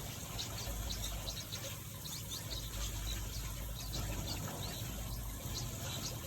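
A mixed flock of small aviary finches chirping, with many short, high chips and calls overlapping throughout, over a steady low rumble.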